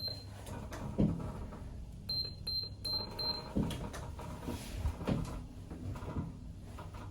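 Passenger lift car travelling down, a steady low hum with a few soft knocks. About two seconds in, four short high-pitched beeps sound in quick succession.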